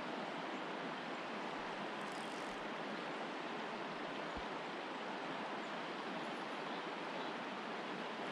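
Small creek running over shallow rocks: a steady, even rush of water.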